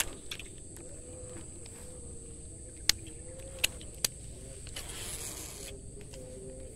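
Handling noise from a fishing rod and reel: a few short sharp clicks, with a brief rustle about five seconds in. Under it runs a steady high insect drone.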